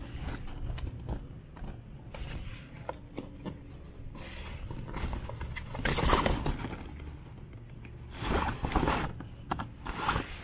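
Dacron sailcloth rustling and crinkling as it is handled close to the microphone, loudest about six seconds in and again near the end, over a steady low hum.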